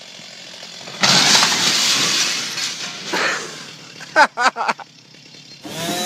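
A felled tree crashing onto a glass greenhouse: a sudden loud crash of breaking glass about a second in that fades over about two seconds. Short shouts follow near four seconds in, and near the end a chainsaw starts running.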